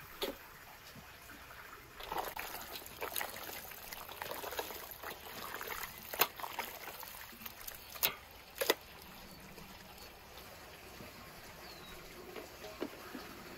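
Liquid trickling, with a few sharp clicks or knocks, the loudest about six and eight seconds in.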